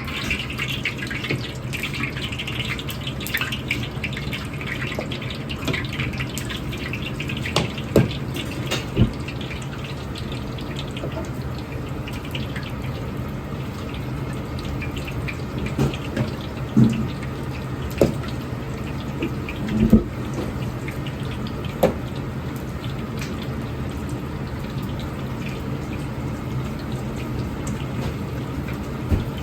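Water running steadily from a kitchen tap over a low hum, with scattered sharp knocks of utensils or cookware.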